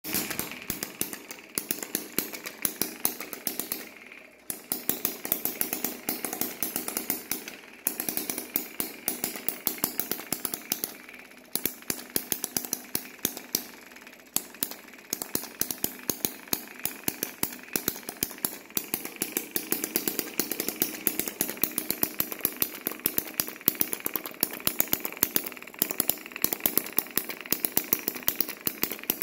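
Small single-cylinder spark-ignition engine running, firing as a rapid, uneven string of sharp pops that drops out briefly a few times.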